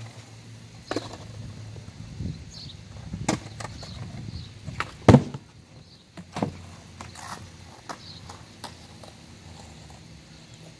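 Skateboard wheels rolling on a concrete sidewalk with a low rumble, broken by sharp clacks of the board. The loudest clack comes about five seconds in as the board hits a low wooden box, and another follows soon after. Only a few faint clicks come after that.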